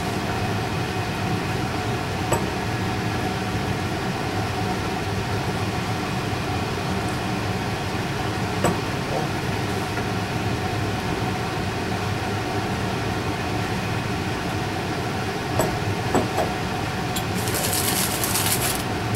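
Steady mechanical hum with several even tones, with a few faint clicks of a silicone spatula against a glass baking dish as cream is spread. Near the end comes a short scraping clatter as a metal mixing bowl is set down.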